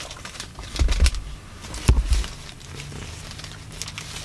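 Paper sandwich wrapper crinkling and rustling as a wrapped sub is handled and opened, with dull thumps about one and two seconds in.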